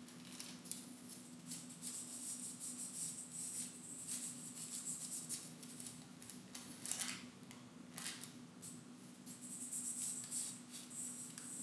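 Irregular crisp rustling and scratching of the thin tissue backing of gold leaf as it is handled and pressed onto the tacky size, with a few sharper strokes, over a faint steady hum.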